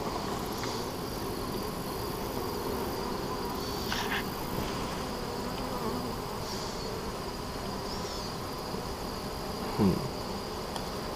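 Honey bees buzzing in a steady, dense hum around an open hive and the frames of bees held above it, with single bees weaving close by. A brief louder sound falling in pitch comes near the end.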